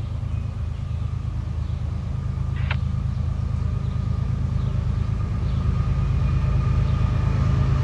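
Three CSX diesel locomotives at the head of a freight train approaching, their engines running as a deep steady rumble that grows louder throughout.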